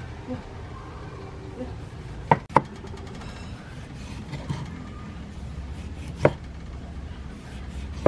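Knife cutting tomatoes on a wooden chopping block, with a few sharp knocks as the blade strikes the wood: two close together a couple of seconds in, and another near the end.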